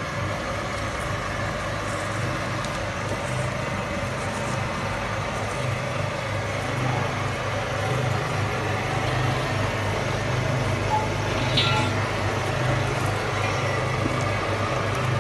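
Screw-press dewatering machine for spent brewery grain running steadily: a constant hum from its electric geared motor and turning screw as the wet grain is pressed.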